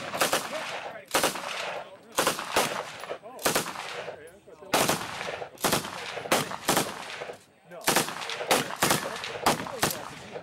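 AR-15-style rifles fired by several shooters along a firing line: about twenty single shots at uneven spacing, some in quick pairs, each followed by a short echo.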